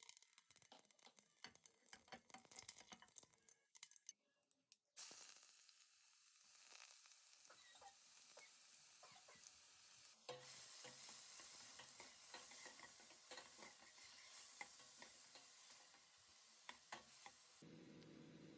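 Faint clicks and scrapes of a spoon stirring in a cooking pot, then about five seconds in a steady sizzle starts suddenly as food fries in hot oil, growing louder about ten seconds in, with the stirring going on through it.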